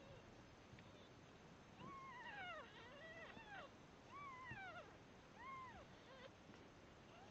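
Three-day-old Devon Rex kittens mewing faintly while jostling to nurse: about five high, short mews that rise and then fall in pitch, the first starting about two seconds in.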